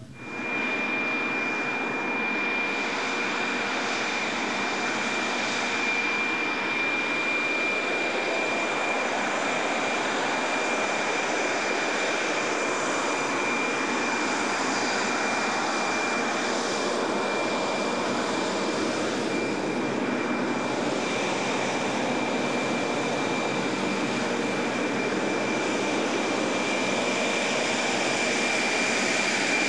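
Tejas light combat aircraft's single jet engine running steadily on the ground, a loud rushing roar with a steady high-pitched whine over it. It cuts in suddenly at the start.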